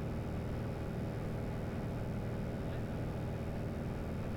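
Steady engine and propeller drone of a Piper Arrow in level cruise, heard inside the cabin.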